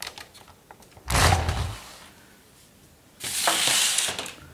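Camera handling noise as the camera is repositioned: a dull bump about a second in, then about a second of rubbing hiss near the end.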